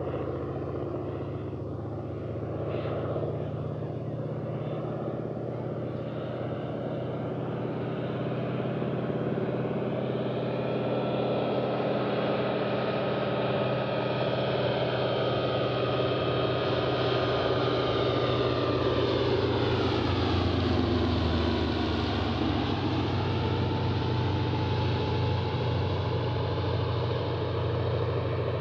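PZL M-18 Dromader crop duster's nine-cylinder radial engine and propeller on a low pass: a steady engine note that grows louder as the aircraft approaches, drops in pitch as it goes by about twenty seconds in, then eases slightly as it flies away.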